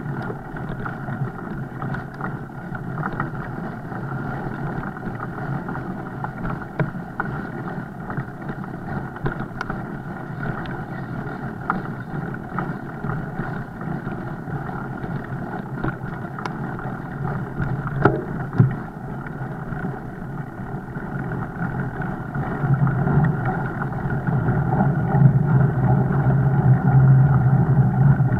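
Steady rushing noise of a fat bike being ridden, with scattered clicks and two sharper knocks about eighteen seconds in; it grows louder over the last several seconds.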